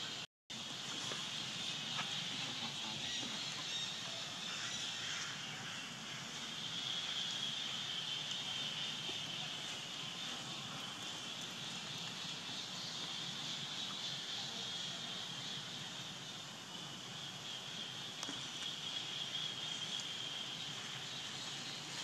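Steady, high-pitched drone of insects in the forest, with faint background rustle; the sound cuts out for a moment just after the start.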